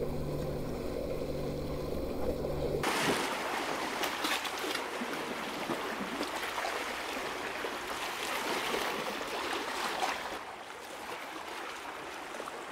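Sea water washing and sloshing among the concrete tetrapods of a breakwater, an even rushing hiss with small irregular splashes. For the first three seconds a steady low hum runs under it, which cuts off abruptly.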